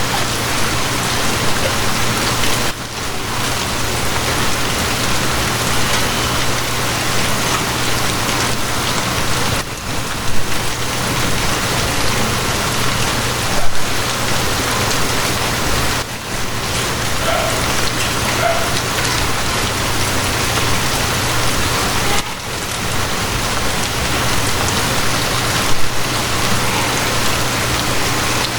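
Steady rain falling on a surface, with a steady low hum underneath and a few louder drops hitting, about ten, fourteen and twenty-six seconds in.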